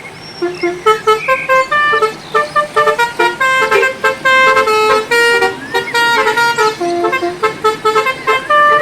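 Telolet bus horn, a multi-tone musical air horn, playing a quick melody of short notes stepping up and down in pitch.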